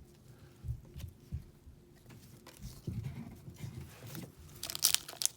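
Trading cards being handled and flipped through, with soft low taps and rubs. Near the end comes a louder crinkling and tearing of a pack wrapper.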